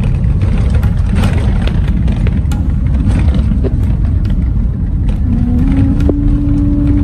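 Road vehicle driving: a steady low rumble with scattered sharp clicks and knocks. A held musical note comes in about five seconds in.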